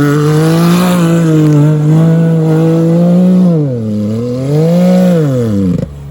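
Can-Am turbo UTV engine with a valve exhaust system and downpipe, revving loud and held at high revs for a few seconds. About two-thirds of the way in it drops, revs up once more and then falls away just before the end.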